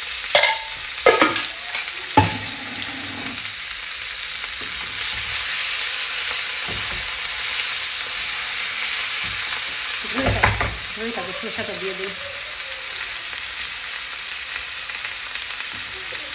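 Potato wedges and tomato slices sizzling steadily as they fry with spices in oil in a frying pan, the masala being fried down. A few sharp knocks of a utensil on the pan come in the first couple of seconds and again about ten seconds in, with tongs scraping as the pieces are turned.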